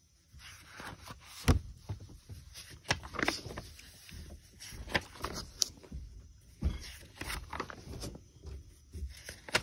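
Pages of a paperback picture book being turned and handled: scattered paper rustles and light taps, with a couple of dull thumps as the pages are flattened.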